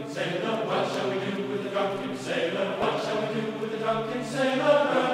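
Intro music of chanted voices, like a choir, holding long sustained notes that shift in pitch every half second or so.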